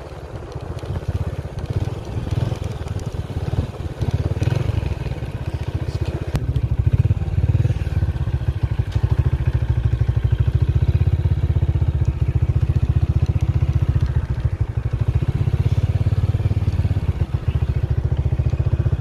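Motorcycle engine running steadily as it is ridden along a road, a continuous low rumble.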